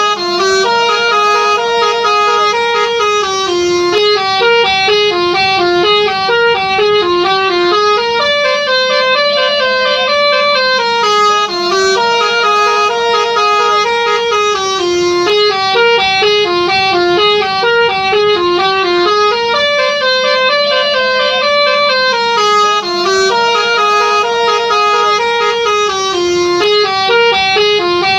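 Telolet multi-tone bus horn playing a fast stepping melody of bright horn notes, the tune looping about every eleven seconds.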